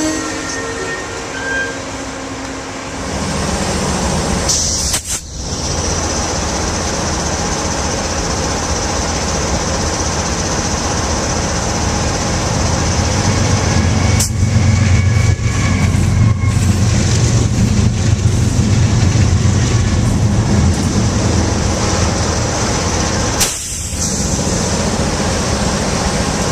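Diesel-electric locomotives passing close by, the deep engine drone building up a few seconds in and staying strong, over steady rumble and rail noise.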